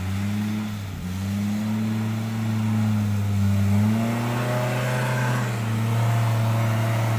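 Off-road 4x4's engine running steadily, its pitch rising a little about four seconds in and easing back.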